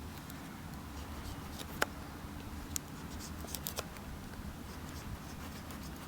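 Large blade of a Victorinox Farmer Swiss Army knife whittling a twig to a point: faint scraping shaves with a few short sharp clicks, the sharpest about two seconds in, over a steady low hum.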